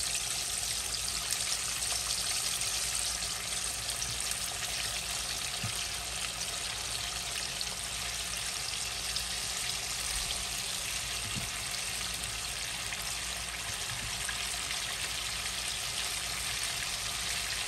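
Flour-coated chicken tenders deep-frying in a pot of hot oil: a steady, even sizzle.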